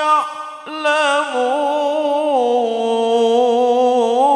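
A man reciting the Quran in melodic tilawah style, drawing out a long, ornamented, wavering note on the words 'wa hum ya'lamun', with a short break about half a second in.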